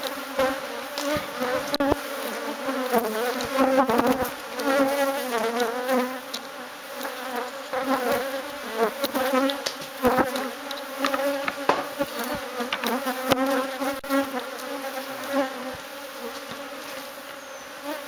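Honeybee colony in a drum buzzing as a steady hum, with many sharp clicks and knocks through it. The colony is healthy and active.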